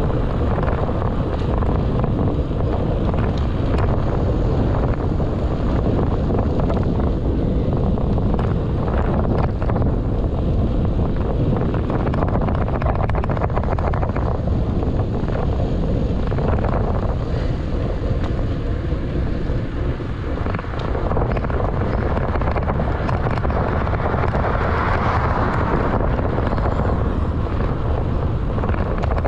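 Wind buffeting the microphone of a handlebar-mounted GoPro Hero 8 Black while cycling: a loud, steady low rumble, with short knocks here and there from bumps in the road.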